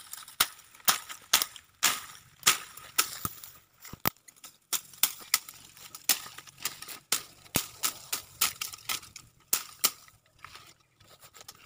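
Dry twigs and stems snapping and cracking as brush is broken and pulled away, in a series of sharp, irregular snaps about one or two a second.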